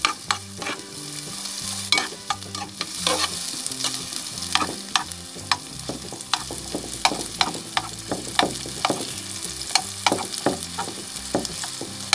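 Sliced onions sizzling in oil in a stainless steel pan, stirred with a metal spoon that clicks and scrapes against the pan many times.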